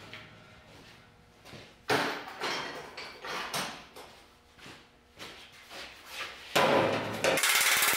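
Sheet-metal body parts clank and knock, with one sharp metallic knock about two seconds in and several lighter knocks after it. In the last half second a loud, rapid, even crackle starts.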